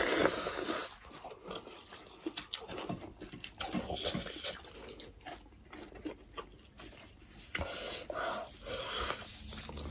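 Close chewing and wet mouth smacking from two people eating rice and fried chicken by hand, with many small irregular clicks and squelches, louder at the very start and again a couple of seconds before the end.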